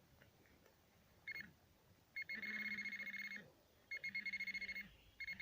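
Metal detector sounding on a metal target in freshly dug soil: a short blip, then bursts of fast-pulsing high beeps with a low hum beneath them.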